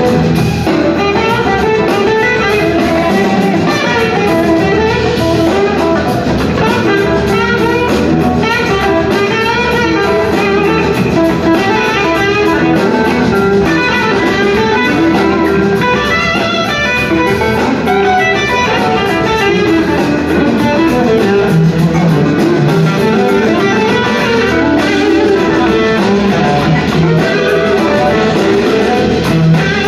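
Live blues-rock band playing an instrumental passage: electric guitars playing lines over drums and bass.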